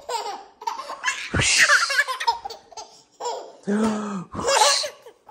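A baby laughing in several short bursts during a game of peekaboo, the loudest about a second and a half in and again near the end.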